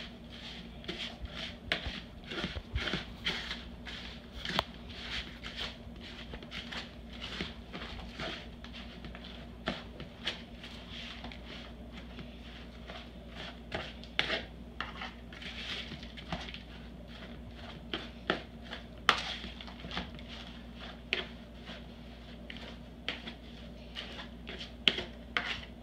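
A spoon stirring and mashing a meatloaf mix of ground chuck, crushed crackers, eggs and onion in a plastic mixing bowl: irregular taps and scrapes against the bowl with soft squishing. A steady low hum runs underneath.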